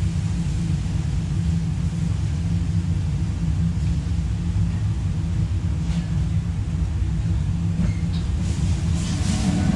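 Steady low rumble of a commercial kitchen's gas wok range and extractor hood running. Near the end a hiss swells as food sizzles in the flaming wok, with a few light metal ticks.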